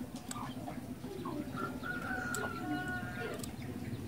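A bird calling: one drawn-out tonal call that starts about one and a half seconds in and lasts under two seconds, with a few short, sharp high notes, over a low steady background hum.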